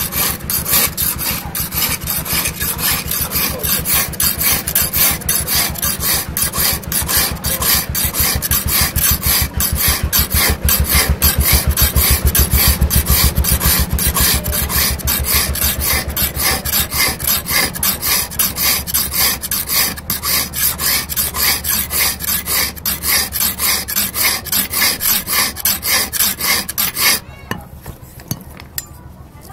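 Long steel hand file rasping back and forth across a steel knife blade in fast, even strokes, several a second, as the blade is shaped by hand. The filing stops abruptly near the end.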